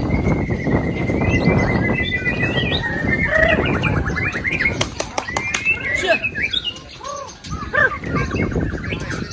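White-rumped shamas (murai batu) singing in competition: a long held whistle for about three seconds, then a fast run of repeated notes and varied rising and falling whistled phrases from several birds, with a few sharp clicks about five seconds in. A steady low din runs underneath.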